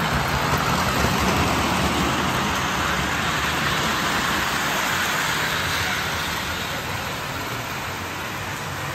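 Lionel New York Central 4-6-4 Hudson #773 O-scale model steam locomotive running on three-rail track with a train of cars: a steady running noise of its motor and wheels, loudest about a second in and easing slowly.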